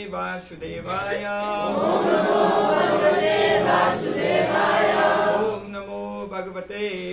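Devotional call-and-response chanting: one male voice leads, and a group of voices chants back louder through the middle, over a steady low hum.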